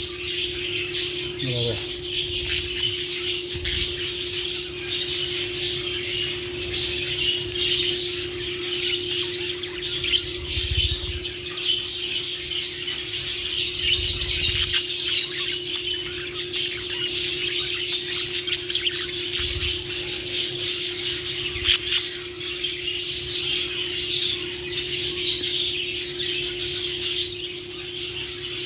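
Lovebirds chattering and squawking in a continuous stream of high, rapid chirps, over a steady low hum.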